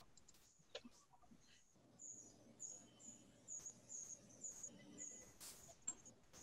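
Near silence: faint room tone with faint short high chirps repeating about twice a second and a few soft clicks.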